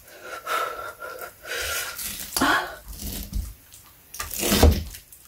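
Kitchen knife sawing through a soft, freshly boiled pork trotter, with wet squishing of skin and gelatinous meat and the blade scraping on a plastic cutting board. There is a louder cluster of knocks near the end.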